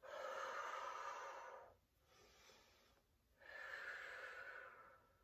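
A woman breathing hard during squats: two long, forceful exhales about three seconds apart, with a quieter inhale between. Each exhale goes with rising out of the squat.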